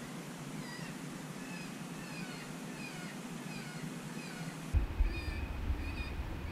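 Predator call sounding cottontail rabbit distress: a string of short, thin squeals, two to three a second, most dropping in pitch. About three-quarters of the way through, a low rumble comes in.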